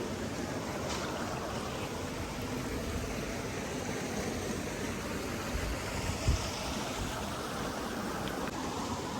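A steady, even rushing noise, with a brief low thump about six seconds in.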